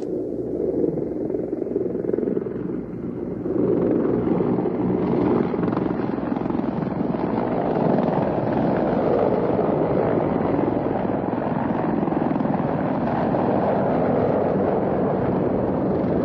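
Several military helicopters flying over in formation. Their rotors and engines make a dense, steady din that swells about three to four seconds in and then holds loud.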